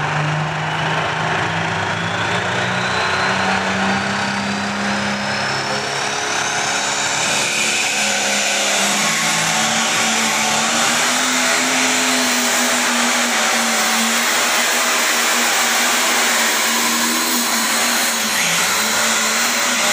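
Light pro stock pulling tractor's turbocharged diesel engine revving up and running hard under full load as it pulls the weight sled down the track. A high whine climbs over the first several seconds, then the engine holds at high revs.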